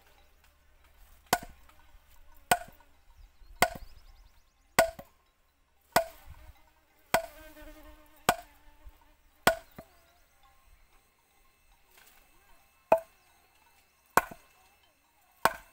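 Heavy length of wood brought down hard on wood at a tree stump with wooden stakes set in it: sharp, woody knocks about every second and a quarter, eleven in all, with a pause of about three seconds after the eighth.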